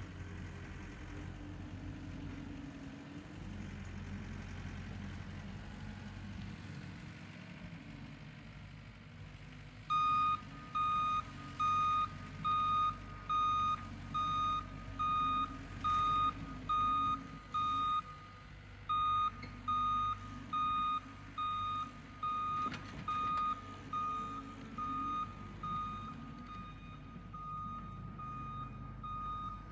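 Engine of the machine driving a power rake, running with a steady low hum. About ten seconds in, a backup alarm starts beeping evenly, a little faster than once a second, as the machine reverses; the beeps are the loudest sound.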